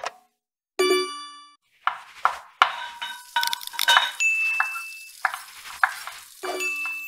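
Edited sound effects: a click, then a bright bell-like ding about a second in. A quick run of clinking and clanging pots, pans and cutlery follows, and a second ding comes near the end.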